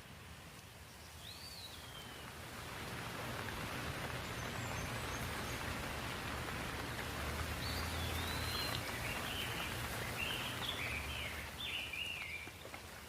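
Steady rain falling, swelling a couple of seconds in and easing off near the end, with a low rumble beneath it. Birds call over it: one call early on a falling note, then a run of short chirps in the later part.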